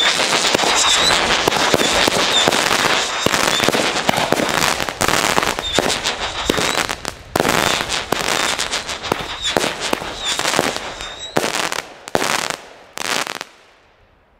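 Lesli Corsac consumer firework battery firing its shots one after another, the air filled with dense crackling from the bursting crackling stars. Near the end the firing breaks into a few last separate bursts and then dies away.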